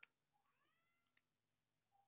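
Faint meow of a domestic cat: one short call about half a second in, its pitch arching up and levelling off. Otherwise near silence.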